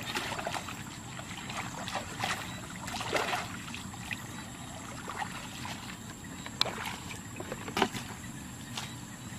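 Muddy water splashing and sloshing as a hoe is dragged and chopped through a shallow ditch. Irregular splashes come closely in the first few seconds, then a few sharper knocks and splashes in the second half.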